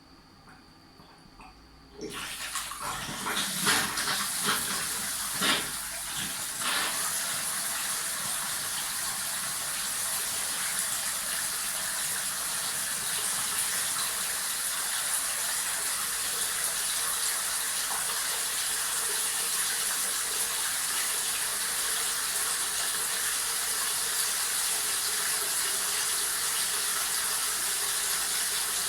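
Water starts running about two seconds in, with a few louder splashes over the next several seconds, then a steady pour that keeps going.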